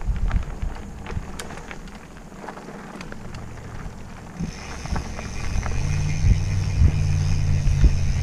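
Mountain bike rolling fast down a dirt singletrack, with knocks and rattles from the trail and wind on the microphone. From about four seconds in, a steady buzz joins in, rising slightly, like a rear hub freewheeling as the bike coasts downhill.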